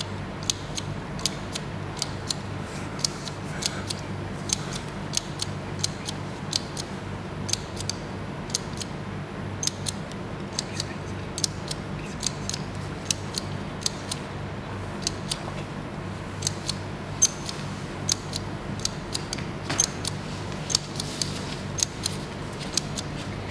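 A hand tally counter clicking at an uneven pace, about one or two sharp clicks a second, each click counting an opening of the tilapia's gill cover, over a steady low hum.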